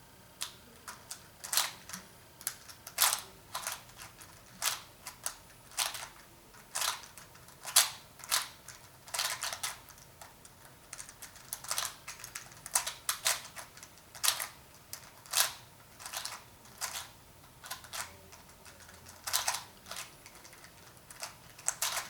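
Rubik's-brand 4x4 puzzle cube being twisted by hand: irregular sharp plastic clicks as its layers turn, roughly one or two a second with short pauses.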